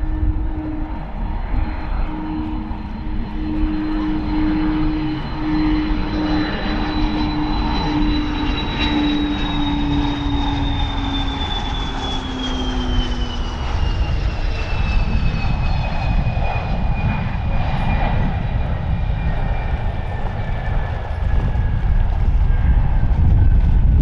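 Fairchild Dornier 328JET's twin turbofan engines on approach and landing. A high engine whine slides steadily down in pitch as the jet passes by. A lower steady hum drops slightly and stops about halfway through, over a continuous low rumble.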